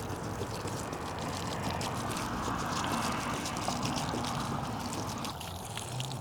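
Water poured onto freshly planted succulents and soil, a steady splashing trickle that stops near the end.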